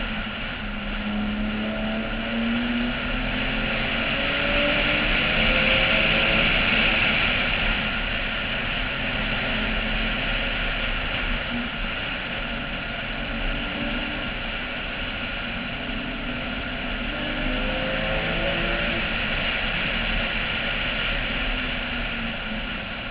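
Porsche 996's flat-six engine at speed on track, heard from a roof-mounted camera under a steady rush of wind noise. The engine note rises and drops back several times as the car accelerates and shifts.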